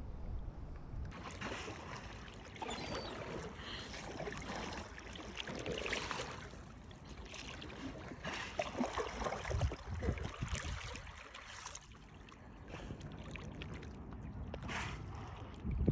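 Water splashing and sloshing in uneven surges over a steady low rumble.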